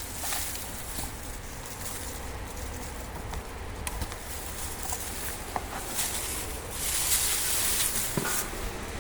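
Soil and potatoes rustling and scraping as a potato container is dug out by hand, with scattered small clicks and a louder stretch of rustling about seven seconds in.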